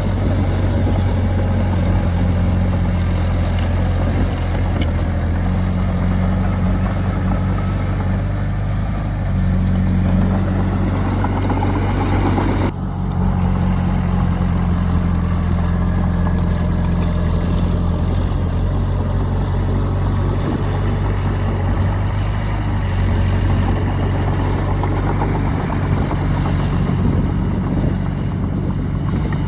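Diesel engine of earthmoving machinery running steadily at a constant speed, with a brief break about 13 seconds in.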